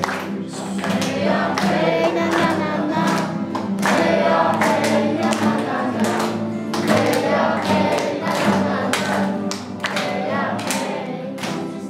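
A group of voices singing together over steady held low notes, with a regular beat marked by sharp strokes.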